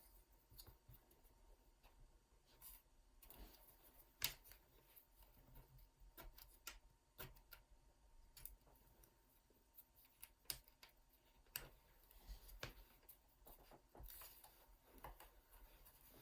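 Faint, scattered clicks and light taps of a laptop's plastic casing and parts being handled during disassembly, with a sharper click about four seconds in.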